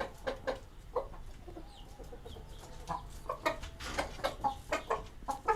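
Hijazi chickens clucking, a string of short, scattered clucks and brief calls.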